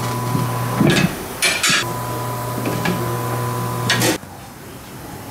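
Tyre-changer machine's turntable motor running with a steady hum while the tyre lever and mount head clank against the steel wheel as the tyre is pulled off the rim. The motor stops suddenly about four seconds in.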